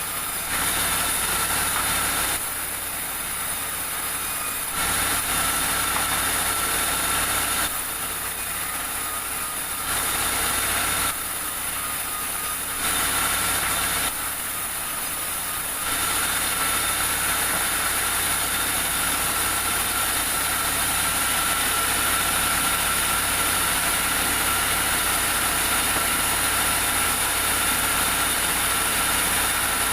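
Sawmill machinery running with a steady engine drone and a high whine. In the first half the sound changes abruptly every couple of seconds, then it runs on evenly.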